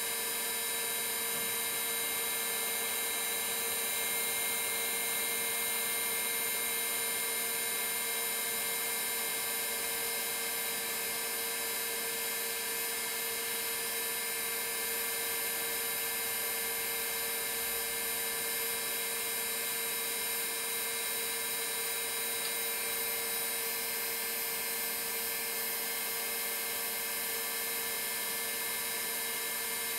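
Rotor of a Boeing 737 model 314 vertical gyroscope spinning under power: a steady whine made of several high tones at once.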